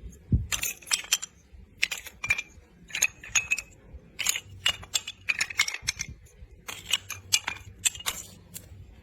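Irregular sharp clicks and light rattling, a few to several a second, some with a brief ringing note.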